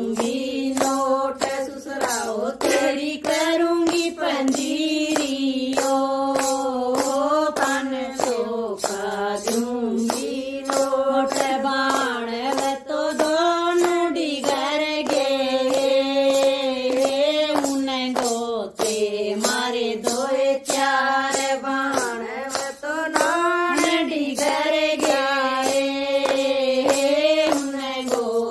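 Women singing a devotional bhajan, with steady hand-clapping keeping the beat throughout.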